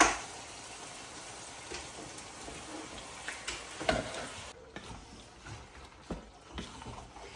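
Chopped peppers and carrots sizzling in a saucepan, with a sharp knock at the start as a plastic bowl is emptied against the pot and another knock a little before halfway. Partway through, the sizzle drops away and a wooden spatula clicks against the pot as spaghetti is stirred through the sauce.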